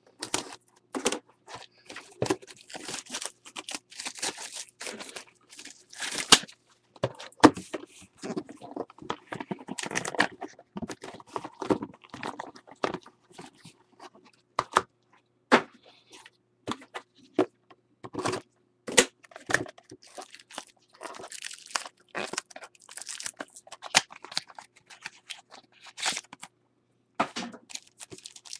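Plastic shrink-wrap and packaging crinkling and tearing as a sealed trading-card hobby box is cut open with a box cutter, and its packs are pulled out and handled. Irregular crackles and sharp snaps throughout.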